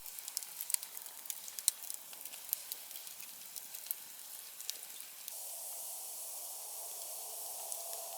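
Nodya log campfire crackling, with scattered sharp pops. About five seconds in, a steady hiss sets in and the pops thin out.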